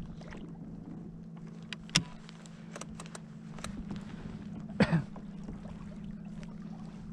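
Kayak's electric trolling motor running with a steady low hum, with a few sharp knocks and clicks, the loudest about two seconds in and just before five seconds.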